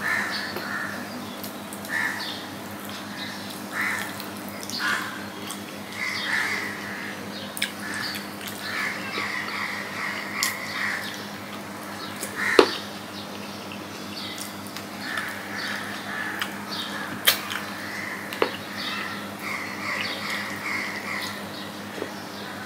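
Crows cawing again and again in the background over a steady low hum. Underneath are the quiet sounds of rice being mixed by hand on a steel plate, with a few sharp clicks.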